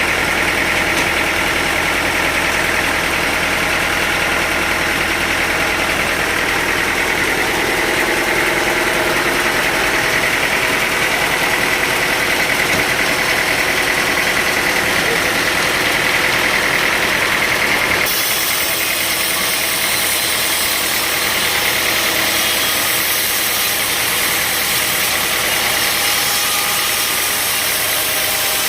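Sawmill machinery running steadily with an engine-like drone. The sound changes suddenly about two-thirds of the way through, becoming hissier.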